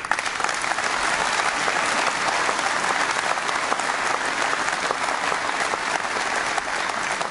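A large audience applauding: many hands clapping together, starting suddenly and holding steady.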